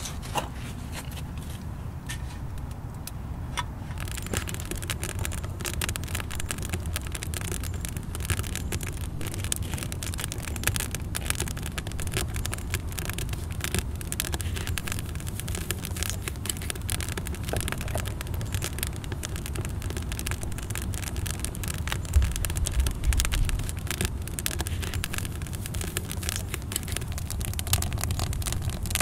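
Outdoor ambience of steady low wind rumble on the microphone, swelling briefly near the end, with a dense run of small crackles and clicks starting about four seconds in.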